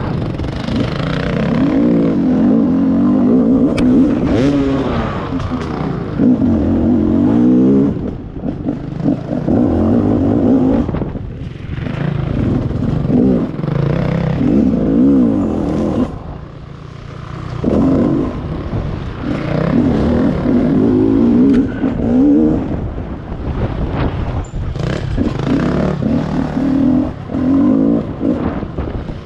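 Rieju MR 300 Pro enduro motorcycle's 300 cc two-stroke engine revving up and down under throttle on a dirt trail. The revs fall away briefly a little past halfway, then pick up again.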